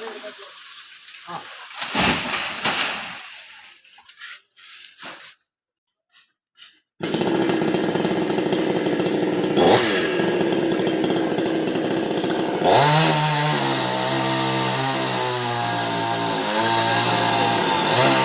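Chainsaw running: after a few scattered knocks and a near-silent gap, it cuts in abruptly about a third of the way in and runs steadily, its pitch shifting and wavering in the last few seconds as the engine speed changes.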